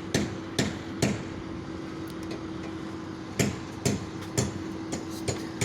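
Hammer blows on a construction site, heard from a distance: sharp knocks about half a second apart in two runs, with a pause of about two seconds between them.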